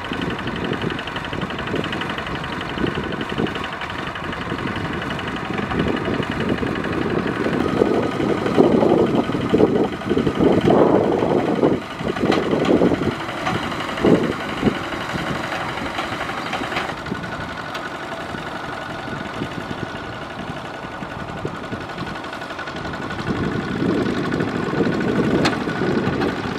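Single-cylinder diesel engine of a two-wheel walking tractor running steadily under load as its cage wheels churn a flooded rice paddy, with irregular sloshing and splashing of mud and water, heaviest in the middle stretch.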